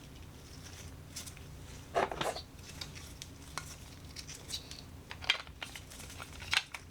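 Marbles rolling and clattering down a plastic Trix Track marble run: scattered clicks and short rattles, the loudest about two seconds in and again near the end.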